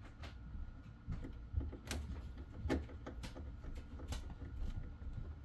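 Irregular small clicks and taps of hands working a wire into a small terminal block, over a low handling rumble.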